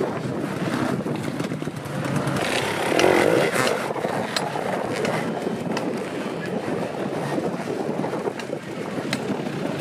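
Enduro dirt bike engines revving unevenly as riders work over a log obstacle, with a few sharp knocks scattered through.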